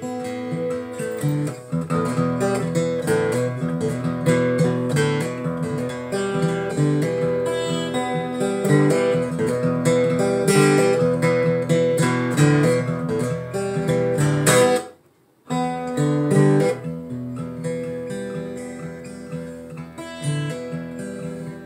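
Steel-string acoustic guitar fingerpicked, an improvised piece moving through chords with plucked single notes over sustained bass. The sound cuts out abruptly for about half a second around fifteen seconds in, then the playing resumes a little softer.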